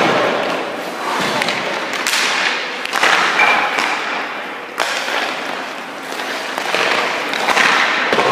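Hockey skate blades scraping and carving on rink ice in repeated swells every second or two, with a few knocks and thuds of goalie gear on the ice, echoing in the rink.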